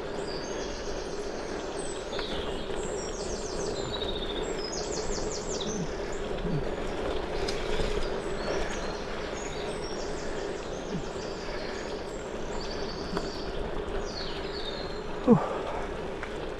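Steady rolling noise of a gravel bike on Goodyear Connector gravel tyres, with birds singing in bursts of fast trills above it and a single sharp knock about fifteen seconds in.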